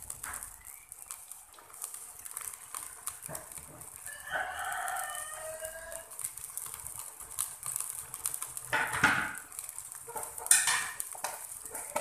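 A rooster crows once, about four seconds in, over the steady hiss of chilli sauce simmering in a wok. A few sharp kitchen clatters follow, the loudest two near the end.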